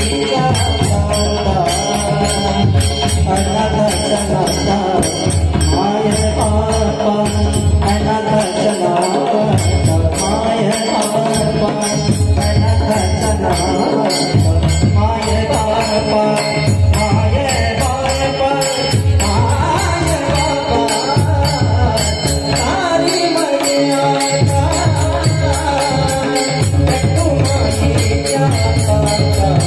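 A male singer performs a Marathi Varkari abhang in long, ornamented vocal lines. Small hand cymbals (taal) clash in a steady, quick beat behind him, over a low accompaniment.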